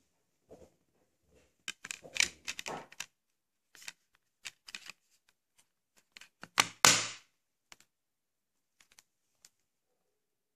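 Plastic clicks and clatter of a Blu-ray case and disc being handled, in clusters of quick sharp clicks. Near the middle comes the loudest sound, a pair of hard plastic snaps as the disc is pressed onto the case's centre hub.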